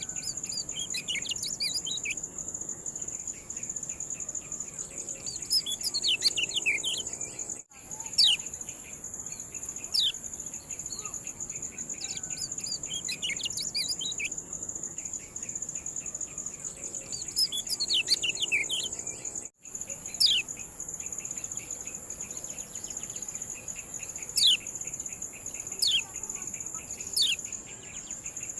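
Kecial kuning giving its 'ciak' calls: clusters of sharp, downward-sweeping chirps every few seconds, with some single loud chirps in between, over a steady high, insect-like trill.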